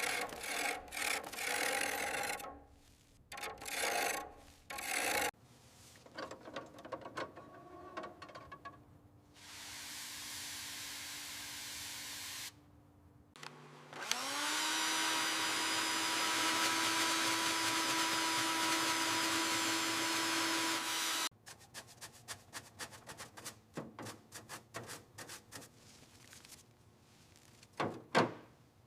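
Hand scraping and rubbing, as of sanding or filing, in several short bouts. Then a small electric tool spins up and runs steadily for about seven seconds before cutting off. The scratchy work resumes near the end.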